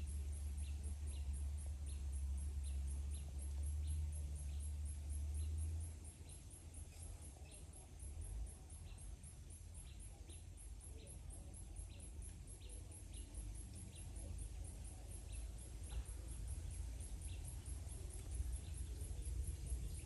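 Background ambience: a low rumble that weakens about six seconds in, under faint short chirps repeating about once or twice a second and a steady, very high, fast-pulsing buzz.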